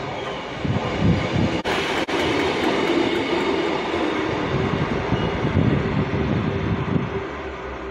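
Class 158 diesel multiple unit running past at close range: diesel engines and steel wheels on the rails, a steady, loud sound that eases slightly near the end as the train moves away.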